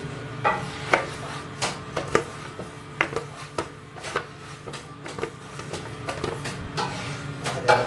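A large, thin sheet of roti dough being flipped and slapped between the hands and onto a floured counter: a run of irregular sharp slaps, loudest just before the end, over a steady low hum.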